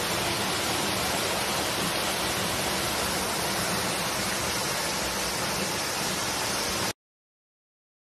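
Waterfall pouring onto rock and into a pool, a steady rush of falling water that cuts off suddenly near the end.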